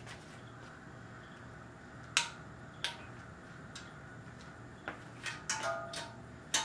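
A ratchet and socket clicking and clinking on bolts of an upside-down 5.3 L V8 as the oil pump and pickup hardware is tightened. The clicks are irregular, with a cluster of quick clinks near the end, a few of them ringing briefly like struck metal.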